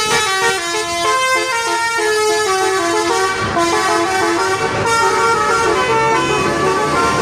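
Telolet bus horn: a coach's set of multi-tone air horns playing a melody, the notes stepping up and down every fraction of a second with several tones sounding together. A low engine hum joins in the second half.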